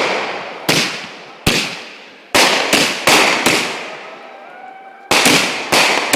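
Fireworks going off: about nine sharp bangs in uneven succession, each dying away over a second or so, with faint whistling tones between the bursts near the middle.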